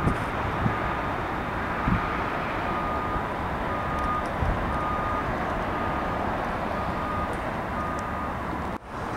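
Steady city traffic rumble with a vehicle's reversing alarm beeping about once a second. The sound drops out briefly near the end.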